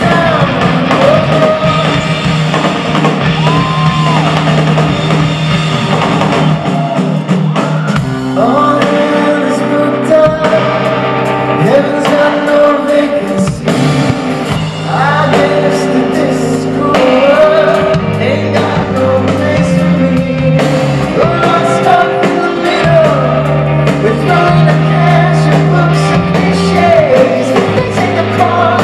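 Live rock band playing loudly with distorted electric guitars, bass guitar and drum kit, while a male lead singer sings over them.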